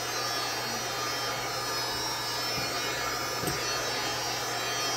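Heat gun running steadily: an even hiss of blown air over a low motor hum.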